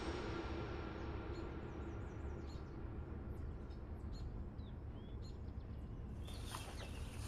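Outdoor ambience: a steady low rumble with a few faint bird chirps. About six seconds in, the background turns brighter and hissier, with more chirps.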